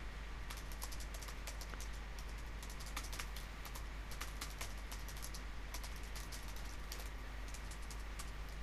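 Typing on a computer keyboard: quick, irregular keystrokes in runs with short pauses between them.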